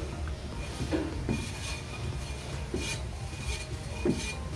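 Rear brake drum of a 2009 Toyota Vios spun by hand on its hub, with a few soft knocks as the hand pushes it round. The brake shoe lining rubs against the inside of the drum in a short scraping rasp every turn or so, a sign that the shoes are still adjusted slightly tight.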